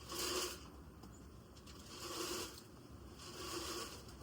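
Dry grain feed being scooped and poured into feed bowls: three short rushing scrapes about a second and a half apart.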